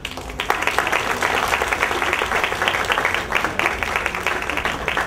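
Audience applauding: a dense patter of many hands clapping that starts about half a second in.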